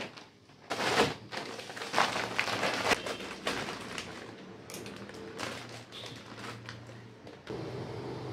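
Clear plastic packet around a block of dried instant noodles crinkling and crackling as it is handled, loudest in the first few seconds and then quieter. Near the end, a steady low hum sets in.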